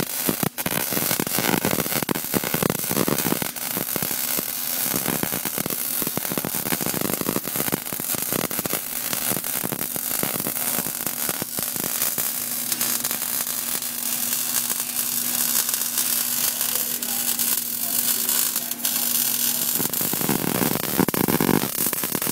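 MIG (gas metal arc) welding arc crackling and sizzling steadily as a fillet weld is run with a weave motion.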